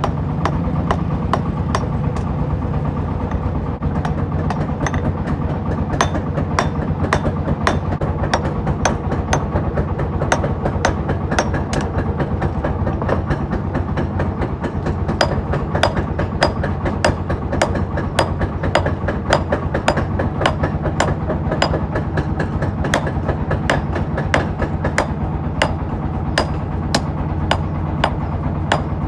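Hand hammer forging a steel knife blade on a small stump-mounted anvil: sharp metal-on-metal blows, a few at first and then a steady rhythm of about two a second. A steady low hum runs underneath.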